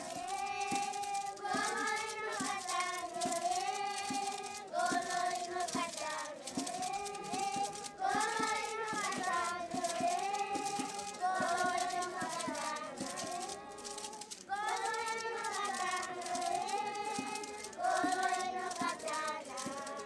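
A group of children singing a song together in unison, in phrases that rise and fall, over a steady beat of short sharp knocks.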